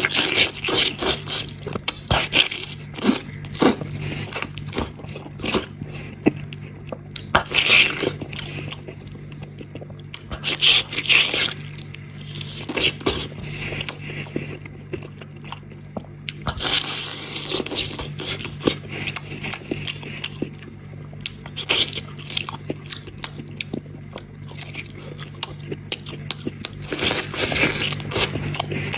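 Close-up eating of a spicy braised goat head by hand: wet biting, tearing and chewing of the meat and skin, with sharp clicks and louder wet bursts every few seconds. A faint steady low hum sits underneath.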